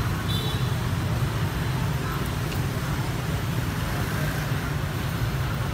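Steady low rumble of street traffic, with motorbikes passing on a busy city street.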